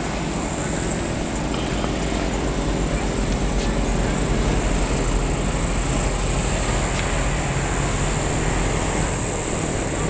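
Steady outdoor ambience: a continuous high-pitched drone over a low rumble, the drone growing a little stronger about four seconds in.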